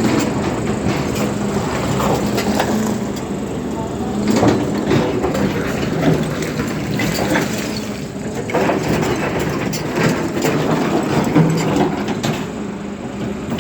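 Excavator diesel engine running steadily under load, with many irregular knocks and scrapes of stone and steel as the machine works.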